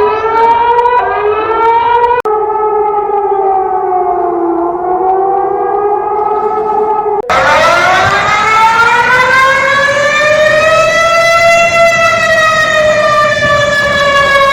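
Warning sirens wailing in three abruptly spliced recordings. The first is a rising wail cut off about two seconds in. The second wavers slowly down and back up. The third, louder and starting about seven seconds in, climbs and then slowly falls back.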